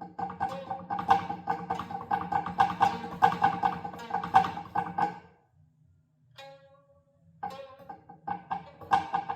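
Quick run of plucked notes on a small tuned instrument. The notes stop about five seconds in and start again about two seconds later. A low steady hum runs underneath.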